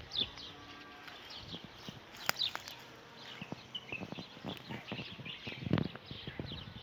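Many small birds chirping continuously in quick, short calls, with scattered clicks and knocks and a louder dull thump near the end.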